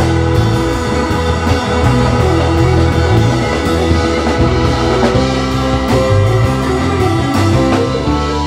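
Live band playing an instrumental passage: electric guitars, a keyboard with an organ sound and a drum kit, with sustained chords over a steady beat.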